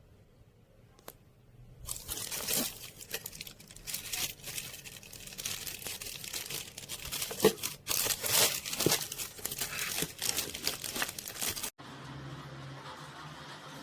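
Packaging being handled: irregular crinkling and tearing with many small sharp crackles, starting about two seconds in. It stops abruptly near the end and gives way to a steady low hum.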